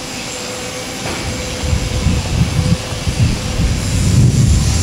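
Wind buffeting an outdoor camcorder microphone: irregular low rumbles gusting in from about a second and a half in, over a steady hiss.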